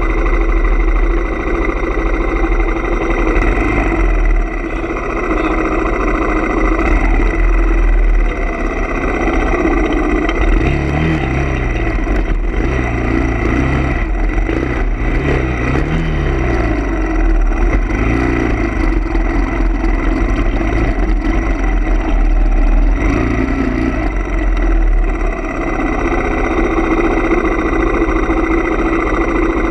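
Background music with sustained, effects-laden tones and a bass line that steps between notes.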